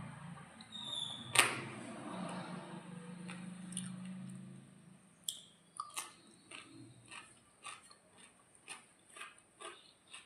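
Chewing while eating: one sharp click about a second in, then a steady run of short mouth clicks about twice a second through the second half.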